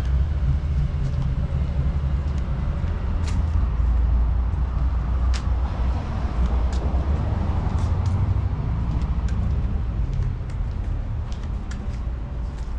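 Street traffic: a steady low rumble of cars, with a vehicle swelling past in the middle and fading after about ten seconds, and scattered light clicks of footsteps.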